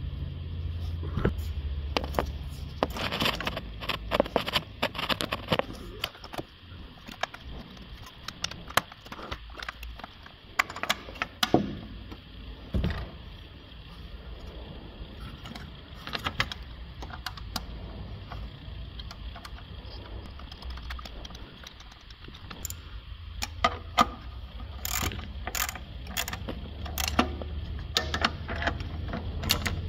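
Metal clinks and taps of nuts and cable lugs being handled on a hybrid inverter's high-voltage terminals. Near the end comes a quicker run of clicks from a ratchet wrench on the terminal nuts.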